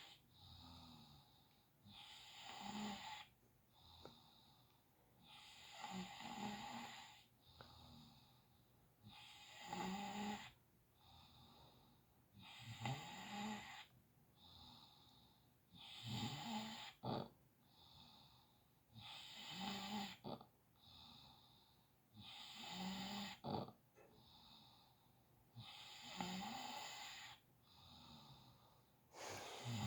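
Faint snoring in a slow, even rhythm, about one snore every three to four seconds. Each loud rasping breath is followed by a softer one, and there are two brief sharp catches in the second half.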